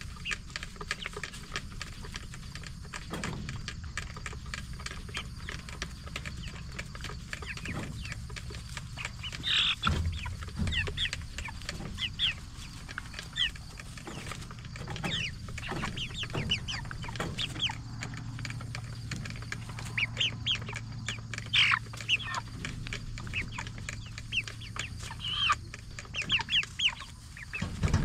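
A flock of Jumbo Cornish Cross broiler chickens, about six weeks old, clucking and peeping in many short scattered calls over a low, steady hum.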